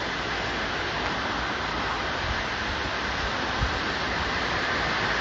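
Steady rush of flowing water in the river channel, with a single short knock about three and a half seconds in.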